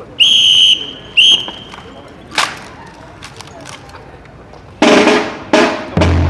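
A drill whistle blown twice, a long blast then a short one, followed by a single sharp crack and two loud bursts a little later. Drums start just before the end.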